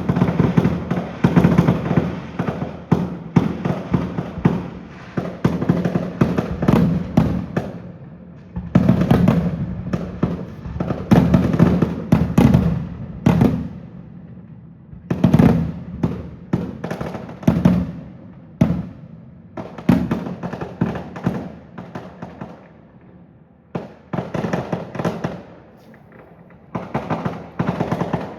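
Aerial fireworks bursting in rapid clusters of sharp bangs and crackles, each with an echoing tail, easing off briefly a few times between volleys.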